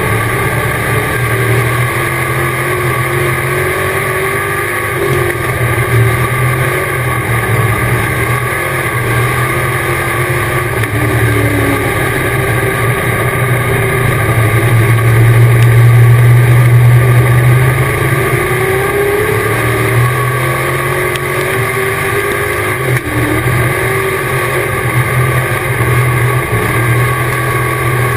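Dirt-track race car's engine at racing speed, heard from inside the cockpit, its pitch rising and falling as the driver gets on and off the throttle around the laps. Loudest about halfway through.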